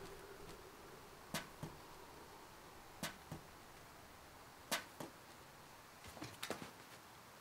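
Sharp taps coming in pairs about every one and a half seconds, then a quick cluster of taps near the end. These are the hand- and footfalls of a person crawling on all fours along the top of a wall.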